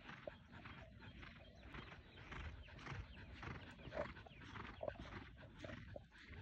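Faint hoofbeats of a horse cantering on the soft dirt of an arena, in an uneven run of soft strokes that are loudest about four seconds in as the horse passes close.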